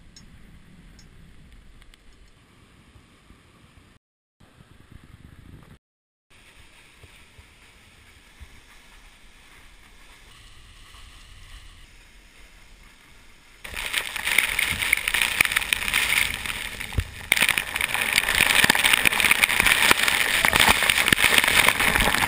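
A faint steady hiss, cut off abruptly twice, then about 14 seconds in a loud, even rush of waterfall water falling close by.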